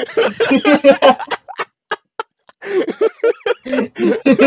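Two young men laughing hard over a video call, in quick choppy pulses, breaking off for about a second midway with only a few small clicks before laughing again.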